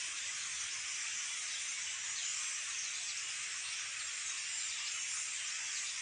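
A flock of small birds calling all at once overhead: countless overlapping high chirps merge into a steady, hiss-like wash.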